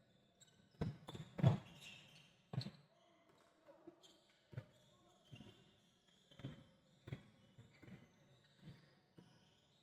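A basketball bouncing on the court, a series of faint, unevenly spaced thuds as players dribble the ball.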